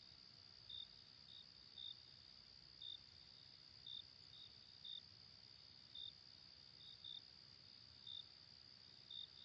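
Faint insect chorus: a steady high-pitched hum with short, higher chirps every second or so.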